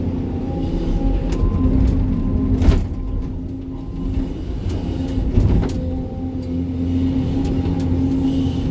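SANY 305 excavator's diesel engine running steadily under load while digging rocky ground, with two sharp knocks about three seconds apart as the machine works the stones.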